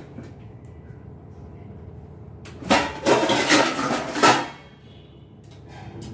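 Stainless-steel utensils clattering and rattling in a wire dish rack as a pan is pulled out, a noisy jangle of about two seconds starting near the middle.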